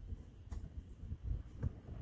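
A few faint, light clicks of a flat screwdriver working at a hood strut's ball-socket end fitting, over a low rumble.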